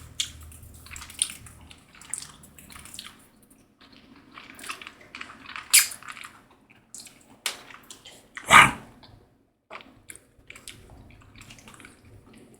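Wet mouth sounds of someone eating tamarind: scattered lip smacks and small clicks, one louder smack about halfway through.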